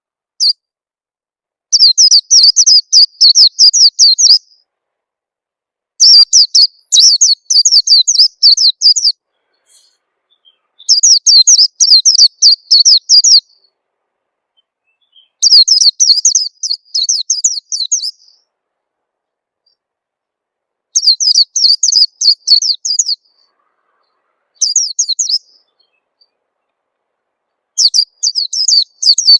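Orange-headed thrush (peleci) song played as a lure call: a string of quick, high, sharp notes that runs for two to three seconds, breaks off, and starts again after a short pause, about seven times over.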